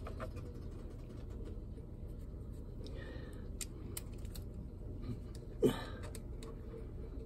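Hand wrench working the pulley bolts on a newly fitted seawater pump: faint metal scrapes and light ticks, with one louder clink about five and a half seconds in.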